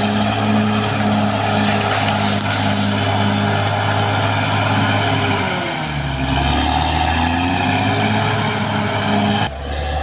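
Caterpillar D6R XL crawler bulldozer's diesel engine running hard with a regular beat about two to three times a second; about halfway through the engine note sags under load, then climbs back. The sound shifts abruptly near the end.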